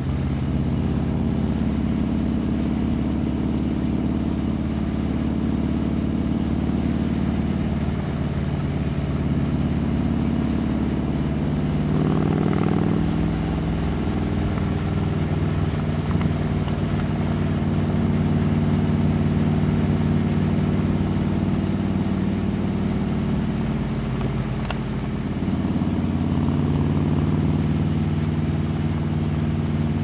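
Harley-Davidson V-twin motorcycle engine idling steadily, with the revs rising briefly twice: once about twelve seconds in and again near the end.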